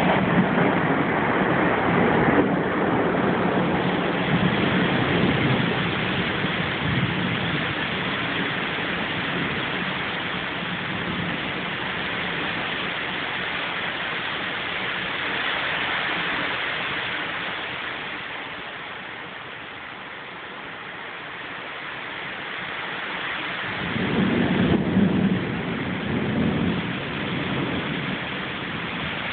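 Thunderstorm: a steady hiss of rain, with thunder rumbling over the first several seconds and a second roll of thunder a few seconds before the end.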